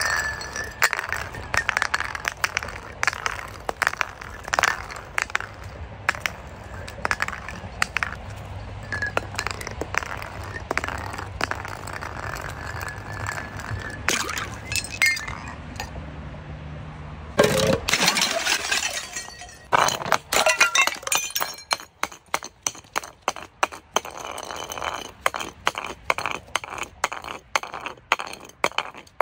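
Glass bottles clinking, cracking and breaking in a long series of sharp impacts and crunches. A steady low hum runs underneath and cuts off suddenly a little past halfway, after which the cracks come thick and fast.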